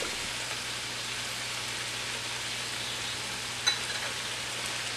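Potato, eggplant and tomato pieces sizzling in a stainless steel pan, a steady hiss, with one light click a little past halfway through.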